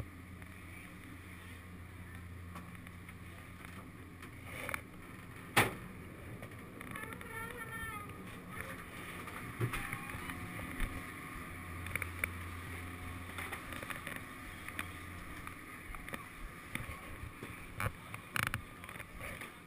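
Gondola cabin moving through the lift station, with a steady low machinery hum, a single sharp clack about five and a half seconds in, and then scattered knocks and shuffling as the rider steps off with a snowboard.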